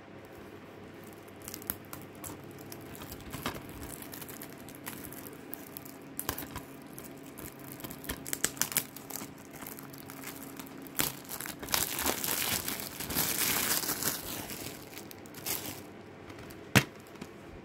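Plastic shrink-wrap being peeled and torn off a DVD case: scattered crackles and crinkles, with a longer run of continuous crinkling and tearing about twelve seconds in.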